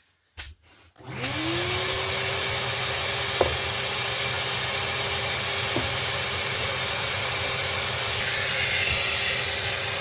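Maxxt random orbital sander switched on about a second in, its motor whine rising quickly to a steady pitch, then running steadily while sanding a hardwood board with 120-grit paper. Two brief knocks stand out.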